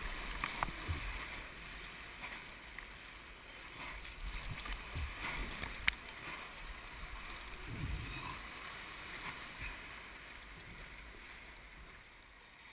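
Whitewater rapids rushing around an inflatable raft, with water splashing against the boat and a few sharp knocks, the clearest about six seconds in.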